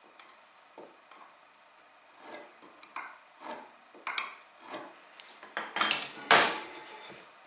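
A steel square and a sliding bevel gauge being handled against a wooden workpiece on a wooden bench: a series of short metal clinks and scrapes about every half second, starting about two seconds in, the loudest near the end as the tools are lifted away and set down.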